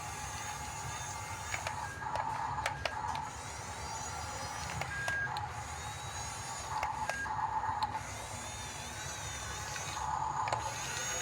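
Small electric motors and plastic gearboxes of an RC bulldozer whirring in three short spurts, with scattered sharp clicks.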